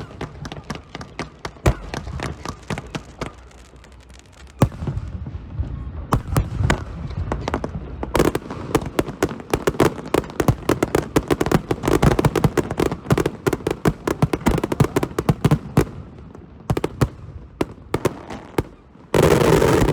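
Fireworks show going off: a run of sharp bangs and cracks that thickens into dense rapid crackling for about ten seconds, thins out, then ends in a very loud burst near the end.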